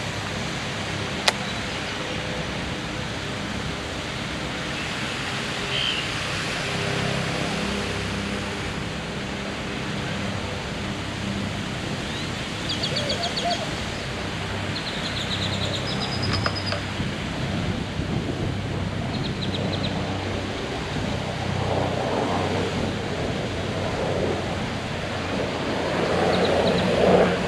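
Steady outdoor wind noise, with a sharp click about a second in and a few short high chirps in the middle.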